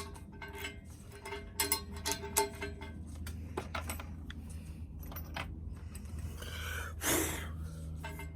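Plucked-string background music that stops about three seconds in, followed by light metallic clinks and a brief rushing scrape near the end, over a steady low hum.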